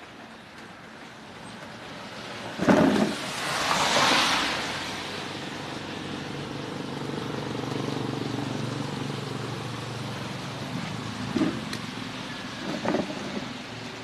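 A motor vehicle engine running and slowly swelling then fading, with a loud rushing hiss about three seconds in and two sharp knocks near the end.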